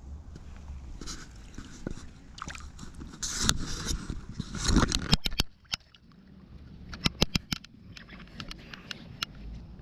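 Shallow creek water splashing and sloshing as the camera and hands move through it at the surface, loudest in two surges about three and a half and five seconds in. Quick runs of sharp clicks follow, a few just after five seconds and more around seven seconds in.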